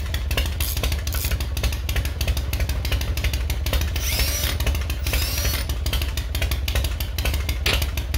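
A motorcycle engine running with a rapid, even exhaust pulse and a strong low rumble.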